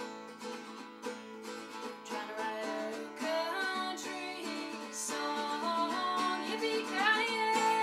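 A woman singing while strumming an acoustic guitar.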